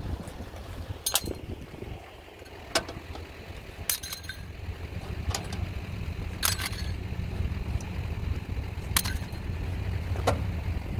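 Sharp metallic clinks and knocks every second or two as strap hardware is handled on a steel car-hauler trailer, over a steady low rumble that grows louder about two seconds in.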